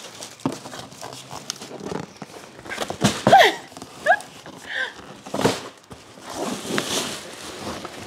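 A cardboard box and plastic wrapping rustle and knock as bagged seat covers are handled and pulled out of the box. Two short, squeaky gliding sounds come about three and four seconds in, the first the loudest moment.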